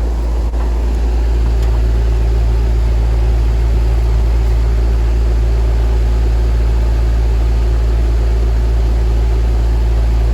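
Air-conditioner outdoor condenser unit running with a steady low hum, a deeper hum joining about a second in. The technician finds that its compressor is not turning, a fault he traces towards a bad capacitor.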